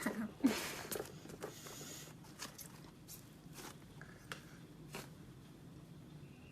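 Light rustling and scattered soft clicks of handling, busiest in the first second, then a few faint clicks over low room hum.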